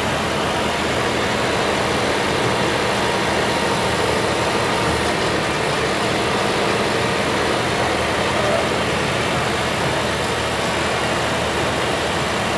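Mahindra tractor's diesel engine running steadily, with no change in speed.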